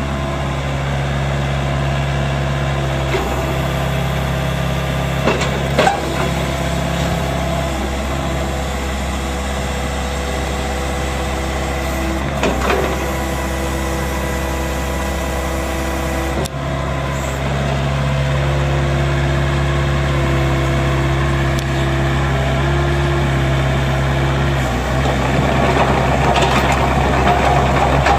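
Gehl GE353 mini excavator's 32 hp Yanmar diesel running steadily while the hydraulics work the boom and arm, with a few sharp knocks from the machine. Near the end the sound gets louder and busier as the machine works harder.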